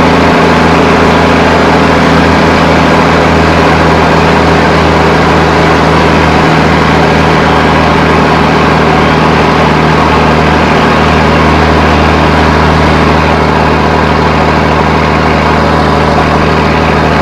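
REO M35A2 2½-ton cargo truck's Hercules LDT-465-1D turbocharged six-cylinder multifuel engine running steadily at cruising speed, loud and heard from inside the cab.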